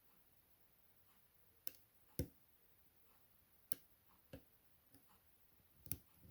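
Small metallic clicks of a lock pick and tension tool working the rotating pins of a Chubb M3 lock: about five sharp clicks at irregular intervals and a couple of fainter ticks, over near silence.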